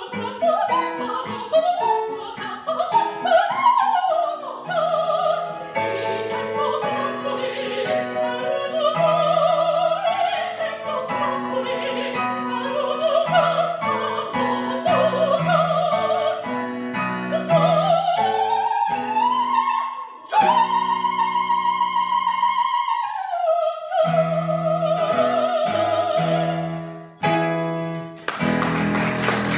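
A female opera singer sings an aria with piano accompaniment. Near the end she holds a long high note, then falls to a lower held note over closing piano chords, and applause breaks out in the last second.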